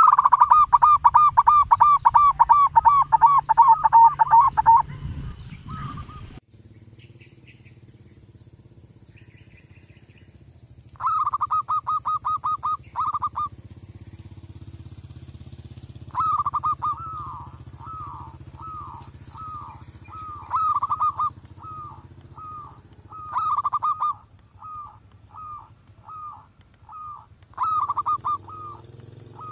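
Zebra dove (merbok) cooing in rapid runs of short, clipped notes: a long fast run in the first five seconds, then shorter bursts and spaced single coos. A steady low hum runs underneath from about six seconds in.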